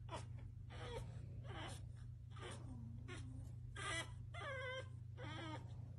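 Pug puppy whining and whimpering: a string of short, faint cries with wavering pitch.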